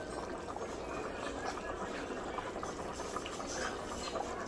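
Pot of thick soup simmering on a stove burner: a steady, soft bubbling with small scattered pops.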